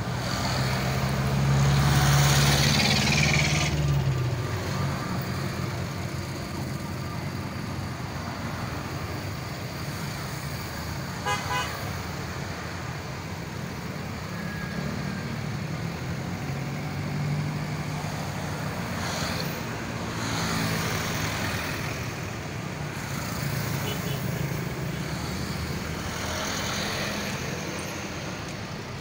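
Road traffic: trucks, a jeepney, motorcycles and a bus driving past one after another, with engine hum. The loudest pass comes in the first few seconds, and a short quick run of horn toots sounds about eleven seconds in.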